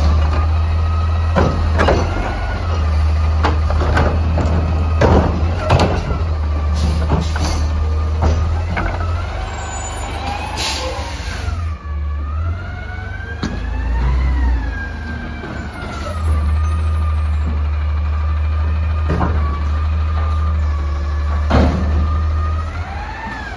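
Front-loading garbage truck with a Curotto-Can arm: the diesel engine runs with a hydraulic whine that rises and falls with the revs, with sharp clanks in the first few seconds and a short hiss about ten seconds in.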